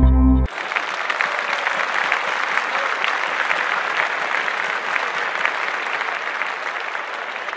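Dense, steady applause, a crackle of many hands clapping, starting abruptly about half a second in as the music cuts off.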